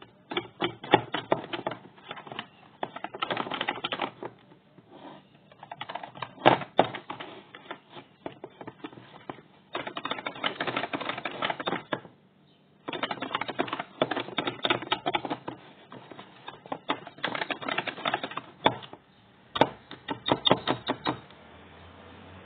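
Wire balloon whisk beating a thick batter in a bowl: quick clicking and tapping of the wires against the bowl, in several spells with short pauses between, stopping shortly before the end.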